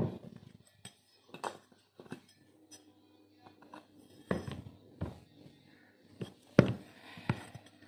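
Metal parts of a dismantled ducting fan motor being handled and set down on a hard floor: a string of short clinks and knocks, the loudest right at the start and again about six and a half seconds in.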